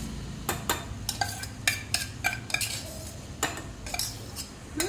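A metal spoon clinking and scraping against a steel bowl and an aluminium pot as soaked sabudana (sago pearls) is knocked out into the pot: a dozen or so sharp, irregular clinks, each with a brief metallic ring.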